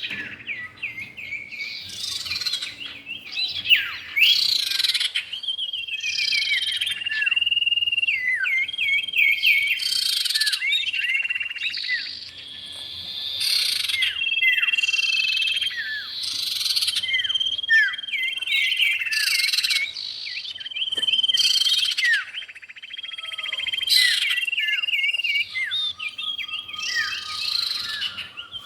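Common iora (cipow) calls, male and female: a continuous run of high whistled notes and chattering, with many quick falling notes repeating over and over.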